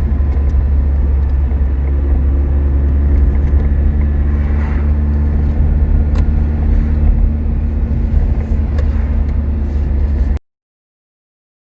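Ferrari 208 Turbo's turbocharged 2-litre V8 running steadily as the car drives, a deep continuous drone. It cuts off suddenly about ten seconds in.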